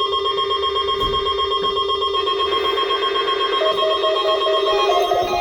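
Weather radio warning alarm: one loud, unbroken steady tone, sounded for a routine test. About two-thirds of the way in, other pitched tones join faintly underneath.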